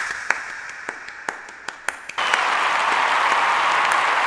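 Applause: a few scattered claps at first, then about two seconds in it thickens into dense crowd applause that holds steady.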